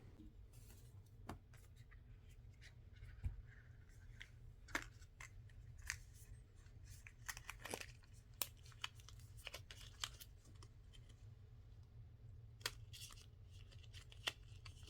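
Faint scattered clicks, taps and soft rustling of packaging being handled while a doorbell's box contents are unpacked.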